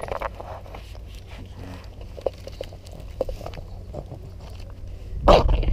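Cavalier King Charles spaniel chewing and gnawing a hot-dog-shaped chew treat, with scattered small crackles and clicks. A sudden loud rush of noise comes near the end.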